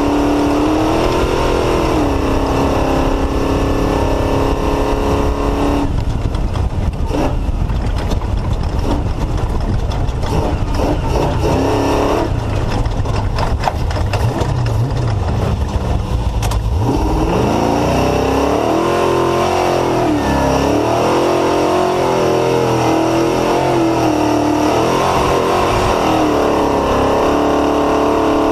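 Off-road race car's engine, built by Mullenix Racing Engines, running hard under racing throttle, its revs rising and falling. For about ten seconds in the middle the engine note drops lower and many knocks and rattles crowd in; then the revs climb and swing up and down again.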